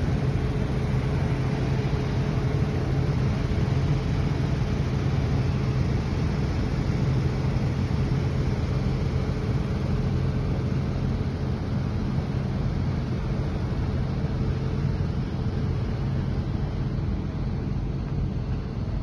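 XCMG XCT80 truck crane's diesel engine running steadily: a constant low drone with a fainter steady tone above it.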